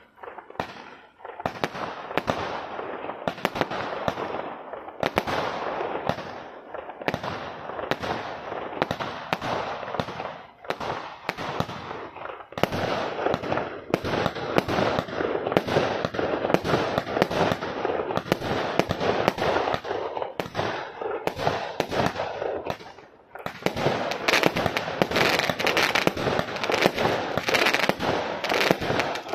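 Celtic Fireworks 'Time Lord' firework cake (126 shots, 20 and 25 mm tubes) firing a rapid, continuous string of shots that launch and burst, with a steady crackle between the bangs. A short lull about 23 seconds in, after which the firing picks up again, denser toward the end.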